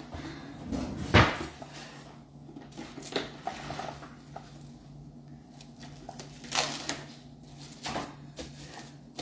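Plastic cling wrap pulled from its box and stretched over a stainless steel mixing bowl, with scattered crinkles and clicks and a sharp knock about a second in.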